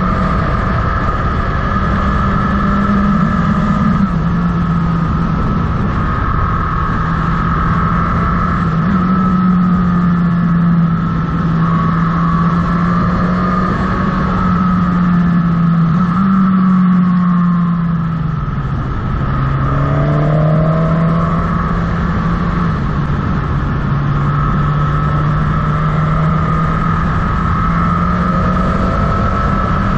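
Motorcycle engine running on the move, its note rising and falling with the throttle several times and dropping lowest about two-thirds of the way through before climbing again, over steady wind and road noise.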